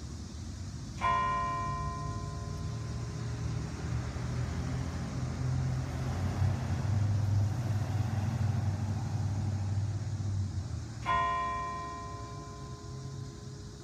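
A bell tolling slowly: two strokes about ten seconds apart, each ringing on and fading away, over a low steady rumble.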